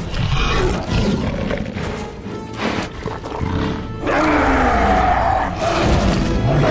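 Film score music, joined about four seconds in by a loud roar from a giant mutant dog.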